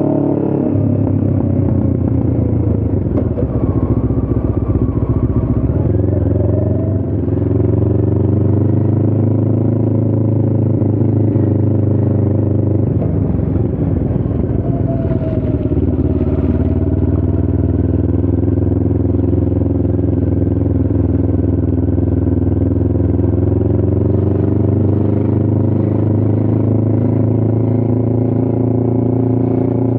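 Motorcycle engine running steadily while riding. Its note breaks and climbs again a couple of times, about 6 and 13 seconds in.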